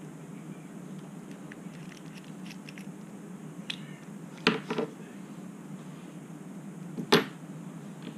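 Small clicks and taps from handling a small FPV camera with a thin metal pick, with two sharp knocks about four and a half seconds in and another near seven seconds, over a steady low hum.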